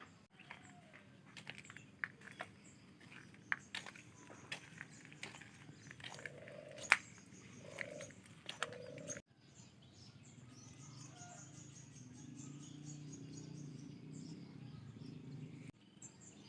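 Goats feeding: crisp snaps and rustling of leafy fodder being pulled and chewed, with a few short low sounds. After a sudden cut, a low steady rumble with a high bird trill over it.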